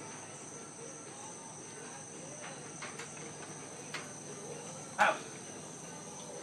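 A steady high-pitched insect chorus of crickets, with one short, loud bark from a hunting dog about five seconds in and a couple of faint clicks before it.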